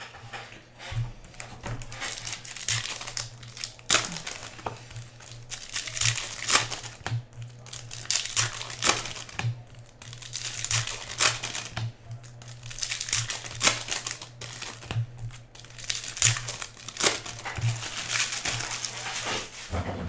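Foil-plastic wrappers of trading card packs being torn open and crinkled by hand: continuous crackling with sharp snaps, over a low steady hum.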